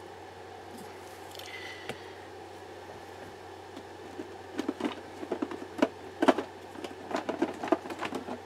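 Small plastic cup of chunky glitter being handled and stirred with a plastic pipette: a run of irregular light clicks and scrapes from about halfway in, over a steady low hum.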